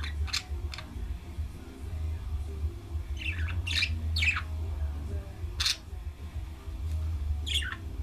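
Pet budgerigars giving short, sharp chirps: a few near the start, a quick cluster of three or four around the middle, then single chirps later, over a steady low hum.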